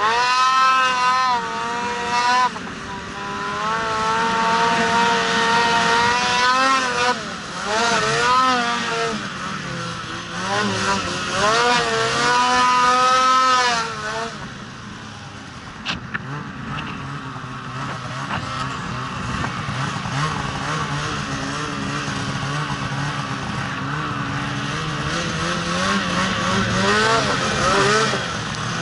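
Polaris RMK Khaos 850 snowmobile's two-stroke twin engine revving hard, its pitch rising and falling again and again as the sled works through deep powder. About halfway through it drops to a lower, steadier running note.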